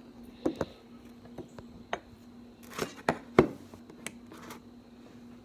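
Scattered clicks and knocks of a phone and battery-charger cable being handled close to the microphone while the phone is plugged in, over a faint steady hum.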